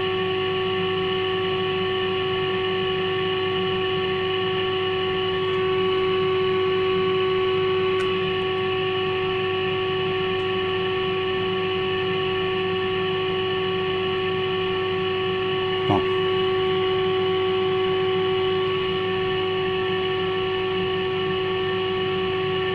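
A valve radio's loudspeaker sounding a steady test tone from the signal generator, with mains hum under it, while the IF stages are aligned at 455 kHz. The tone gets a little louder twice for a few seconds as the IF transformer cores are tuned. There is a short click about 16 seconds in.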